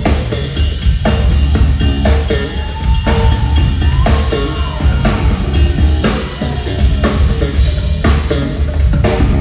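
Live rock band playing loudly through the PA: a drum kit keeping a steady beat under a heavy six-string electric bass line, the deep bass notes strongest.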